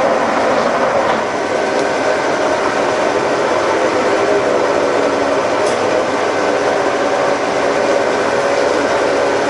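Horizontal milling machine running steadily, taking a power-fed boring pass with a heavy boring bar, with a steady machine whine of several held tones.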